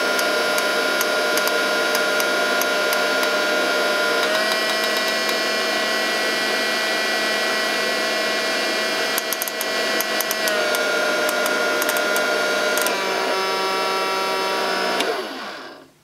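Small battery-powered motor of a toy Miele cylinder vacuum cleaner running with a steady whine. Its pitch steps up about four seconds in as the power dial is turned toward high, drops back in two steps later on, and the motor dies away near the end.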